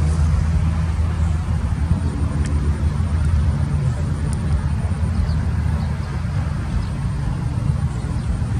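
Airliner on final approach, heard from a distance as a steady low rumble.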